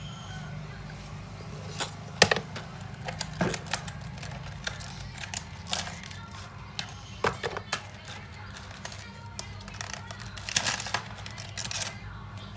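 Irregular light clicks and taps of small tools and parts being handled on a phone during a battery replacement, the sharpest about two seconds in, over steady low background music.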